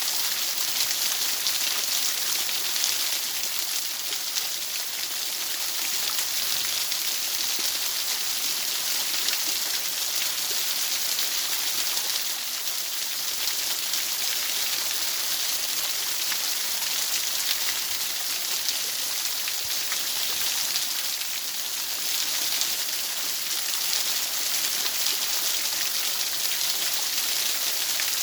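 A steady, even hiss, brightest in the high register, with a fine pattering grain and no breaks or changes.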